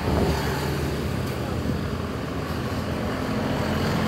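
City street traffic: motor scooters and cars running past, a steady mix of engine hum and road noise.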